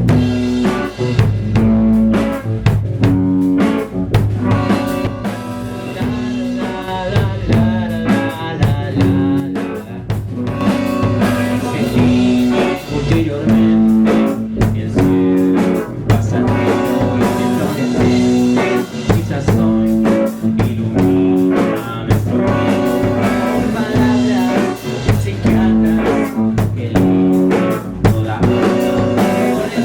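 Rock band playing a song in the studio room: drum kit keeping a steady beat under guitars and low bass notes.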